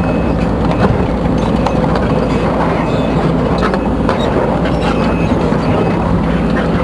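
Case CX210B hydraulic excavator running steadily, its diesel engine and hydraulics sounding together with scattered short metallic clicks and clanks.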